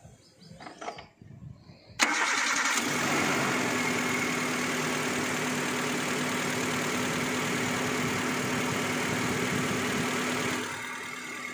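Maruti Gypsy's 1.3-litre four-cylinder petrol engine cutting in suddenly about two seconds in and running at a steady idle with a constant pitch. It drops somewhat in level about a second before the end.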